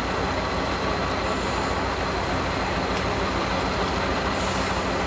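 Six-wheeled trial truck's engine running steadily under load as the truck crawls up a steep rocky slope.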